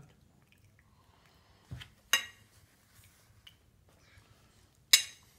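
A metal spoon clinking against a plate of pasta twice, about two seconds in and again near the end, with a soft knock just before the first clink.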